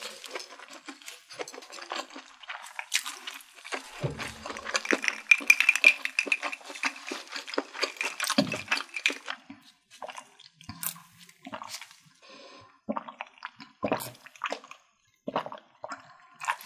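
Mouth sounds of eating and drinking: wet chewing, then sips drawn through a straw with slurps and swallows. The busiest stretch is a few seconds in; near the end the sips come as short separate bursts with pauses between.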